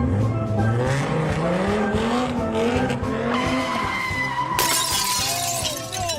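A motor vehicle engine revving up, its pitch rising over the first few seconds, then a harsh burst of skidding noise about four and a half seconds in, over background music.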